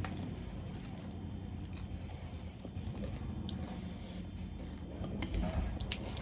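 Close-miked eating sounds: chewing with soft wet mouth noises and scattered small clicks, over a steady low hum.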